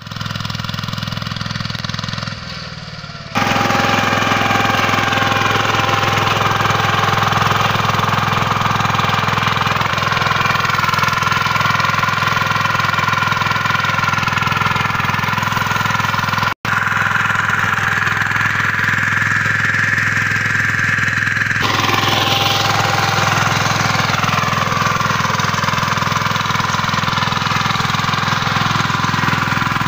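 VST power tiller's single-cylinder diesel engine running steadily under load as it works the soil between sugarcane rows to earth up the cane. It gets louder a few seconds in and cuts out for an instant a little past the middle.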